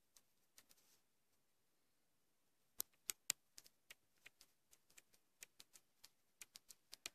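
Near silence broken by faint taps on a touchscreen as figures are handwritten: three sharper clicks about three seconds in, then a run of light ticks.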